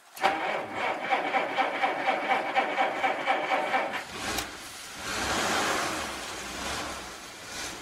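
Car engine being cranked by its starter motor with a rapid, even beat for about four seconds, then catching and running, rising briefly before settling.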